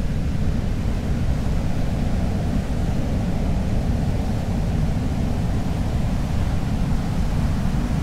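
Ocean surf: a steady low rumble of waves, with no single break standing out.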